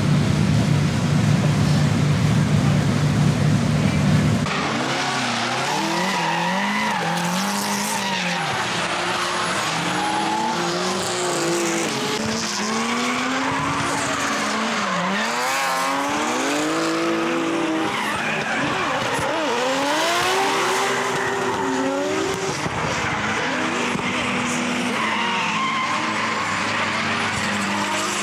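A steady low drone for about the first four seconds, then a drift car's engine revving up and down again and again, its pitch rising and falling, with tyres skidding as the car slides.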